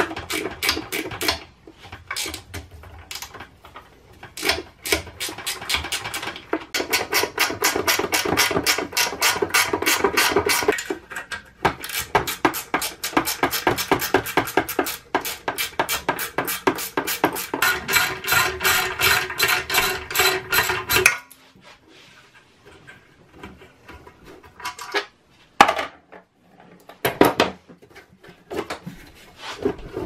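Rapid, even metallic clicking of hand tools working the pressure switch loose from an air compressor, in long runs with short breaks. The clicking stops about two-thirds of the way through, leaving a few scattered knocks.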